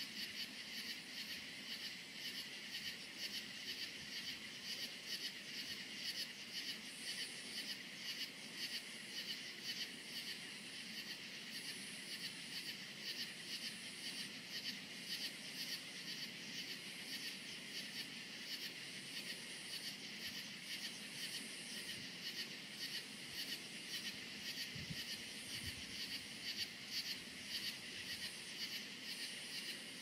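Chorus of crickets chirping in an even, steady rhythm, with a higher trill that comes and goes.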